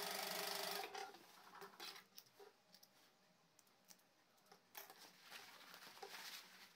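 Industrial single-needle sewing machine running a seam and stopping under a second in. Then faint scattered clicks and rustling of cloth and thread being handled.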